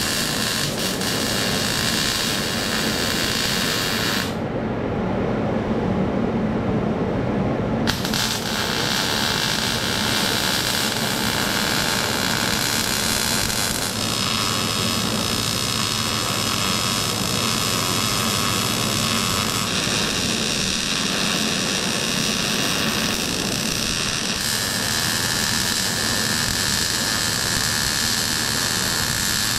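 Steady, loud metalworking noise from work on a steel firewood holder frame, with faint steady tones in it. The sound changes character abruptly about four seconds in, again at eight seconds, and a few more times after that.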